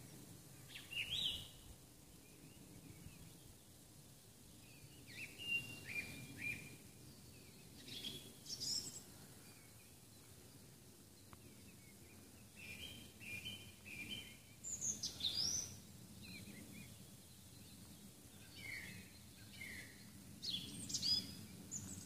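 Songbirds singing in woodland: short chirping and whistled phrases come every few seconds, the busiest stretch about halfway through, over faint steady low background noise.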